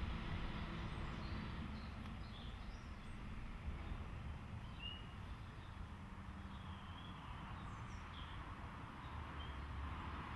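Outdoor ambience: a low, steady rumble with faint, scattered bird chirps.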